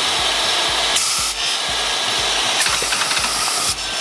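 Table saw running steadily while a fire extinguisher blasts twice: a short hiss about a second in, then a longer one from about two and a half seconds to nearly four. The blasts drive dowels into the spinning blade, and rapid clacks come as the dowels are struck and fired during the second blast.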